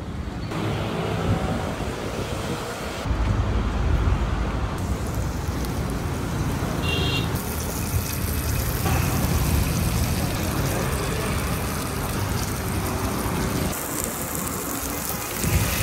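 Road traffic rumbling past a street food cart, broken by several abrupt cuts. From about seven seconds in, a steady hiss of garlic and chilli frying in oil in a pan. A short high beep sounds just before the hiss begins.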